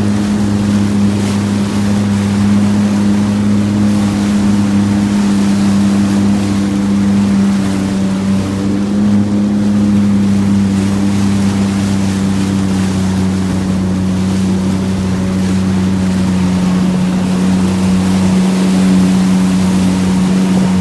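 Sea-Doo jet ski engine running at a steady cruising speed, its pitch holding even, with rushing water and wind noise around it.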